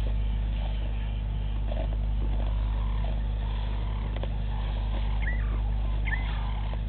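A steady low hum, with two short chirping bird calls about five and six seconds in.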